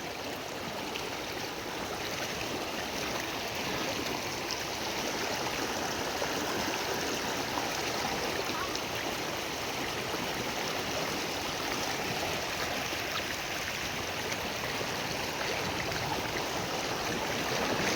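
Steady rushing of flowing water, an even noise without distinct splashes that grows a little louder over the first few seconds and then holds.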